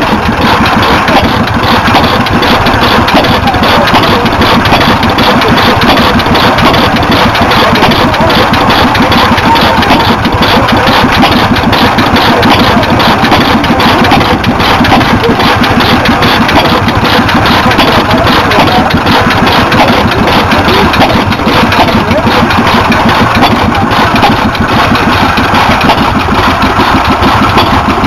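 Vintage hit-and-miss stationary engines running: a loud, steady mechanical clatter.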